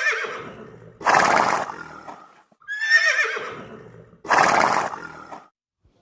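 Horse whinnying twice. Each call is a high, wavering cry that falls in pitch and fades, followed by a rough, breathy blow about a second long.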